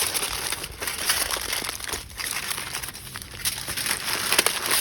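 Reynolds Wrap aluminium foil crinkling and crumpling as a foil cooking packet is folded shut by hand, in several bouts with short pauses between them.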